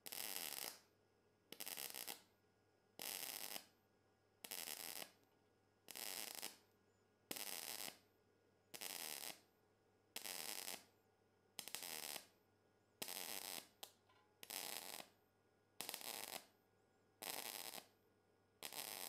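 Cebora Pocket Pulse synergic inverter MIG welder working thin sheet-steel drywall profile in spot-time mode, with the current raised a little: a regular series of short arc crackles, each about half a second long, repeating about every one and a half seconds, about fourteen in a row with quiet pauses between.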